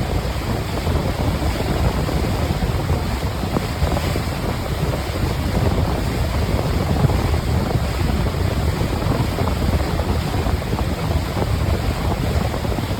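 Steady rush of wind buffeting the microphone together with water noise from a boat under way, heaviest in the low end, with no distinct events.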